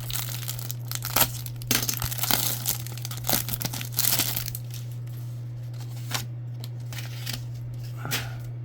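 A trading-card pack wrapper being torn open and crinkled by hand, crackling and rustling for the first four seconds or so, followed by a few light clicks and handling sounds over a steady low hum.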